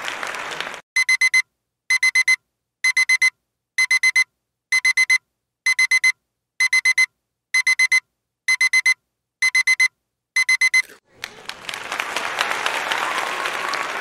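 Electronic alarm clock beeping in groups of four quick, high beeps, about one group a second, eleven groups in all. Applause at the very start and again from about eleven seconds in.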